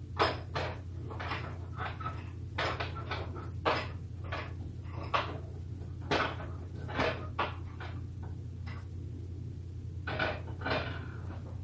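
Frying pans being moved about and set down on the coil burners of an electric stove: a scatter of light clanks and knocks in small clusters, some with a brief scrape after them.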